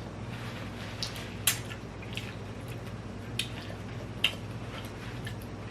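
A person eating instant noodles close to the microphone: wet chewing and mouth smacks, with several short sharp clicks spaced roughly a second apart, over a low steady hum.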